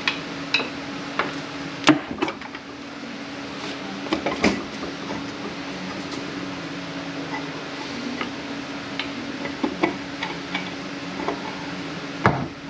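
Scattered knocks and clinks of hand tools on the case as the rear cover of a Kia A6LF2 six-speed automatic transmission is pried off, over a steady low hum. The sharpest knocks come about 2 s in, about 4.5 s in and near the end.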